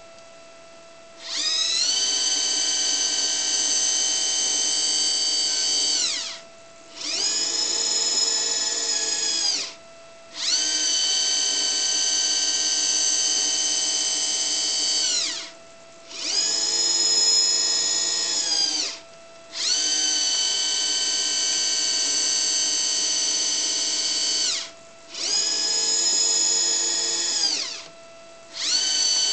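Motor drive of a model Caterpillar 789C haul truck whining as it raises and lowers the dump bed again and again: runs of about five seconds raising the bed alternate with shorter runs of about three seconds lowering it, the pitch sliding up at each start and down at each stop. A faint steady hum carries on in the pauses between runs.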